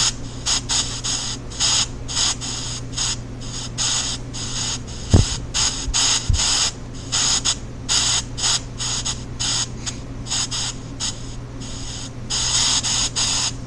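Chopped pink noise from a ghost-hunting EVP app: a hiss cut into short, irregular bursts that start and stop several times a second, some louder and some softer, over a steady low hum. Two brief low thumps sound about five and six seconds in.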